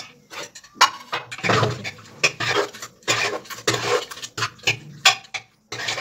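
A steel spoon stirring and scraping a wet potato-and-aubergine curry inside an aluminium pressure cooker, with several sharp metallic clinks against the side of the pot.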